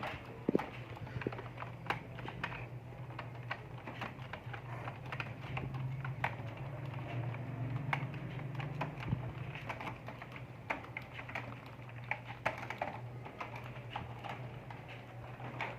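Computer keyboard being typed on at an uneven pace during a home-row typing drill, keys clicking irregularly, over a steady low hum.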